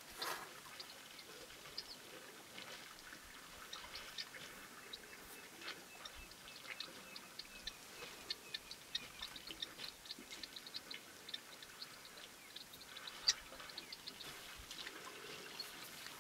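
Faint waterhole ambience: many short, high ticks and chirps scattered throughout, with one louder click about thirteen seconds in.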